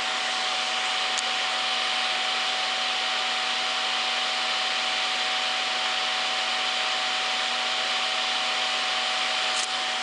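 1988 Pelonis Safe-T-Furnace 1500 W space heater's fan running steadily: an even rush of air with a constant tone and a lower hum in it, as the heater pushes out the last of its heat while cooling down.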